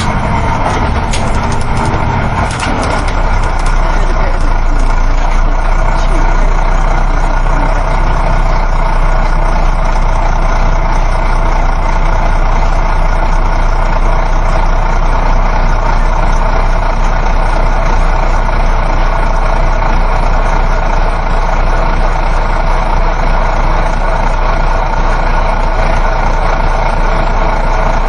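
Steady interior noise of a moving coach bus: a continuous engine drone with road rumble. A few faint clicks and a slight shift in the low rumble come in the first few seconds.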